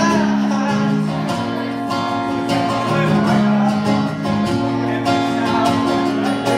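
Acoustic guitar strummed live, playing sustained chords that change every second or two.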